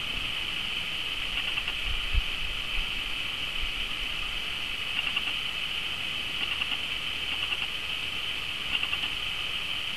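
Steady high-pitched chorus of insects chirring, swelling a little now and then, with a couple of low thumps about two seconds in.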